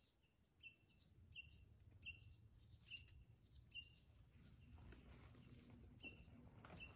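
Faint bird calls: a single short, high chirp repeated roughly once a second, with a pause of about two seconds in the second half.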